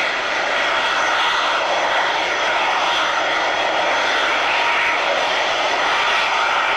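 Jet airliner engines at high power: a steady rushing jet noise with a faint whine, unchanging throughout.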